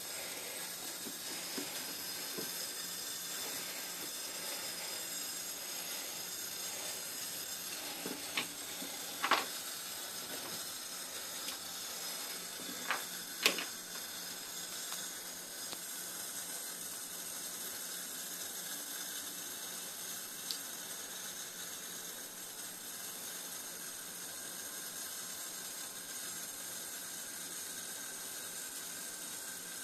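Tap water running into a sink with a steady hiss, and a few sharp clicks and knocks about a third of the way through and once more past the middle.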